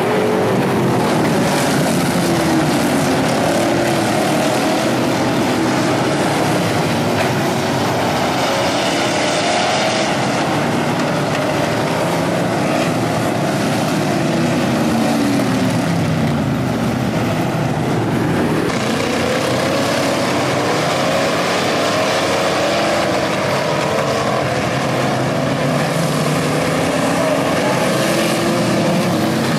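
Several street stock race cars' engines running hard around a dirt oval, the pitch rising and falling again and again as cars go past and around the track.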